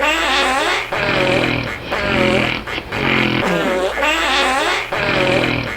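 Fart-like snoring noises: a rough, low buzz that repeats about once a second, each time after a wavering higher-pitched stretch.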